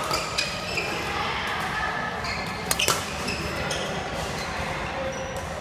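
Badminton rackets striking a shuttlecock in a doubles rally: a few sharp smacks, two near the start and a close pair a little before halfway. Short high squeaks from court shoes on the mat come between the hits.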